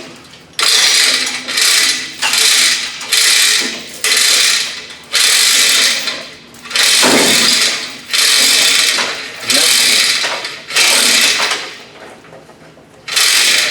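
Ratcheting lifting gear clicking in about ten strokes, roughly one a second, with a longer pause near the end, as a heavy tractor section is let down.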